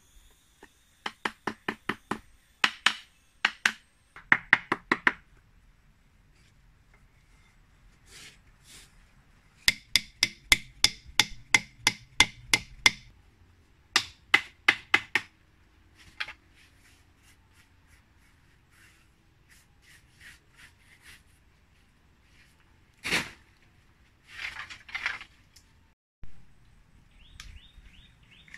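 Runs of sharp wooden knocks, about three or four a second, as bamboo is struck while it is being worked into place. About two-thirds of the way through comes a single heavier knock, followed by a rougher scraping.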